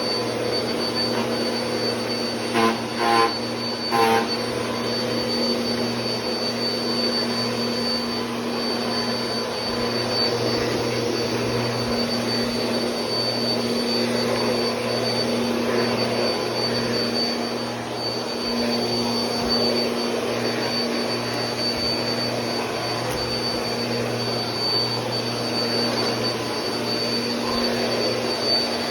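Bissell PowerForce Compact Turbo bagless upright vacuum running steadily, a motor hum with a thin high whine over it. Three brief louder sounds come through about three seconds in.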